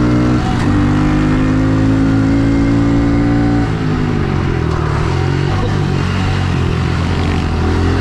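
Honda CRF110 pit bike's small single-cylinder four-stroke engine held at high revs. About three and a half seconds in the revs drop and the pitch falls as the throttle is backed off, then it picks up again near the end.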